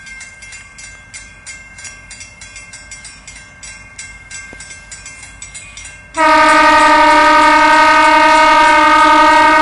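A bell rings at a steady beat while a Pan Am Railways locomotive approaches a grade crossing. About six seconds in, the locomotive's horn starts one loud, long blast.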